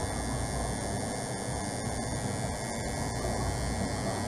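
Electric tattoo machine running with a steady low buzzing hum as its needle works on skin.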